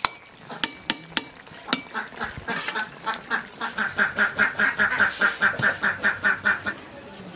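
A duck quacking in a fast, even run of about five quacks a second that grows louder and stops shortly before the end. A few sharp metallic clicks, like a ladle knocking a steel pan, come in the first two seconds.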